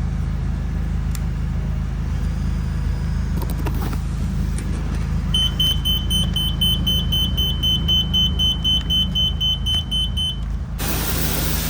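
Rapid electronic beeping, about four high beeps a second, over a steady low hum; the beeping starts about five seconds in and stops about ten seconds in. Near the end a loud hiss of spraying starts.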